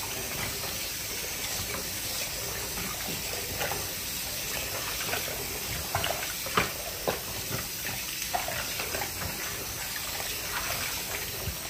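Kitchen tap running into a large stainless-steel pot of raw beef chunks, with splashing and sloshing as hands wash and turn the meat in the water.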